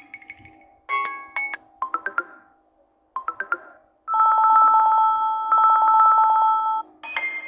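Samsung Android tablet playing its built-in notification and ringtone sounds one after another. First come short chimes of a few notes each. Then, about four seconds in, a trilling two-tone ring like an old telephone bell lasts nearly three seconds, and another chime follows near the end.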